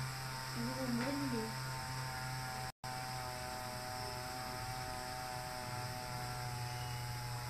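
Small battery-powered DC motors of a homemade bubble maker running, a steady hum with a faint higher whine. The sound cuts out for a moment near three seconds in and then carries on unchanged.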